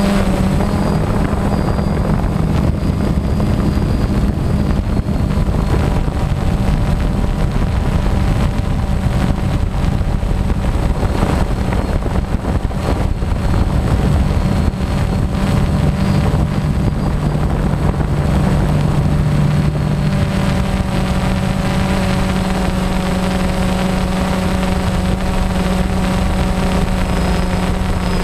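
DJI Phantom quadcopter's electric motors and propellers humming steadily, heard from a GoPro mounted on the drone, with wind buffeting the microphone. The hum's pitches shift slightly about two-thirds of the way in as the motors change speed.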